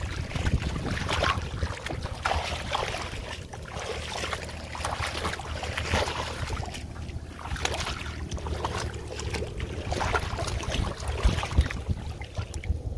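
Shallow muddy water splashing and sloshing in irregular bursts as hands plunge in and grab at fish, over a steady low rumble of wind on the microphone.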